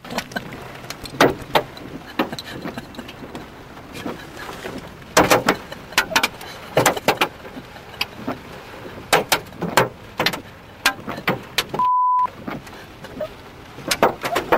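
Hailstones striking a vehicle and the ground: irregular sharp knocks and clatters over a steady rush of wind, with a brief steady beep near the end.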